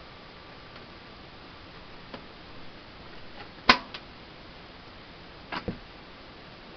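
Clicks and knocks of an iMac G3's hard drive and its caddy being handled and worked out of the case: one sharp click a little past halfway with a softer one right after, and a quick double knock near the end, over a steady hiss.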